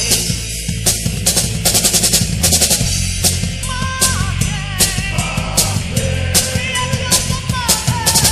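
Heavy metal band playing an instrumental passage: the drum kit plays busy fills with rapid runs of snare and tom strokes over the bass drum, under electric guitars and bass. From about halfway through, a lead guitar holds sustained, bending notes.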